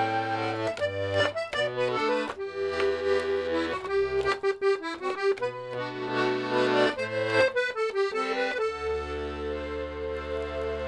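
Melodeon (diatonic button accordion) playing a lively tune with bass and chord accompaniment, settling on a long held chord about three-quarters of the way through.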